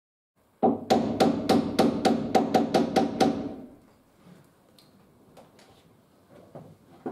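Quick hammer blows on timber, about a dozen at four to five a second, knocking a glued handrail and its dowels home into a stair newel; a few faint taps follow.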